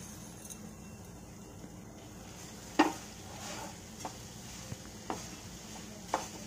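Spoon stirring thick moong dal halwa in a pan as sugar goes in, with four sharp knocks of the spoon against the pan, the loudest about three seconds in.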